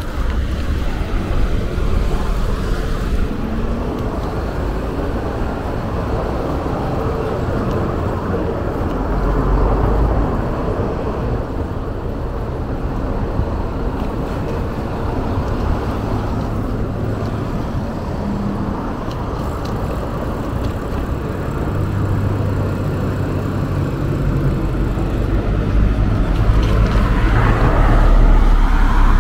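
Street traffic: cars passing with steady road noise. A vehicle engine's low hum builds over the last several seconds and is loudest near the end.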